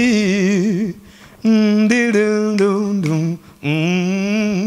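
A man singing unaccompanied: long held notes with a wavering vibrato, in three phrases with short breaths between them.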